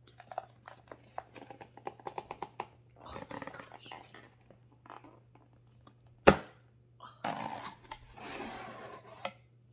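A small cardboard box being handled and opened by hand: a quick run of light clicks and taps, some rustling, one sharp loud knock about six seconds in, then more rustling and a last click near the end.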